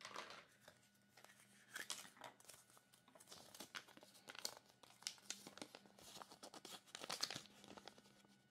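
Faint crinkling and rustling of a thin folded paper leaflet from a Kinder Surprise toy capsule as it is unfolded by hand, in irregular crackles with a few louder moments.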